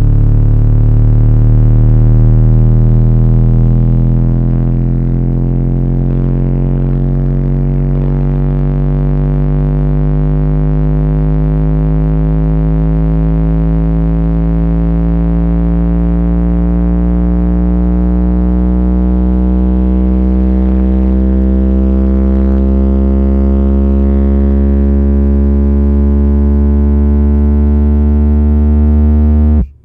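Sine-wave bass sweep played through two 10-inch car subwoofers, heard inside the car: one loud, steady tone rising slowly from the mid-30s Hz to the low 70s Hz, with heavy distortion overtones, reaching about 138 dB around 54–57 Hz, the frequency where the cabin peaks. It cuts off suddenly just before the end.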